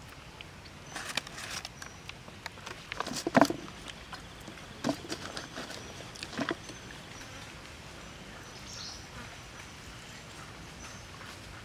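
Dry rice paper wrappers handled by hand: a few brittle crackles and taps in short clusters, the loudest about three and a half seconds in. Faint bird chirps in the background.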